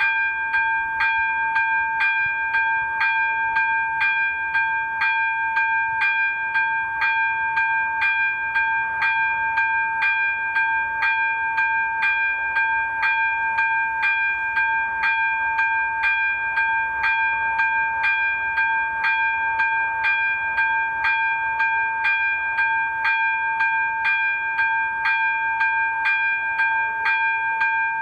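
Electronic ZV-02 level-crossing bell ringing steadily, about two strokes a second, a clear two-note ding. It is sounding the crossing's warning that a train is approaching.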